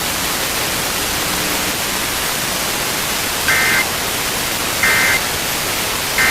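Steady receiver hiss from a NOAA weather radio broadcast. Over it come short two-tone data bursts of the EAS end-of-message code: the first about three and a half seconds in, the second about a second and a half later, and a third starting at the very end. They mark the end of the warning message.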